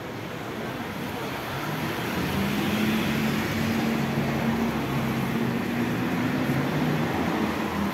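Road traffic on a wet street: a vehicle's engine drone swells and fades over several seconds, over the hiss of tyres on wet asphalt.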